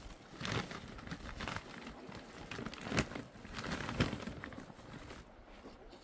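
Plastic sack crinkling and rustling as it is handled, with two sharp knocks about three and four seconds in.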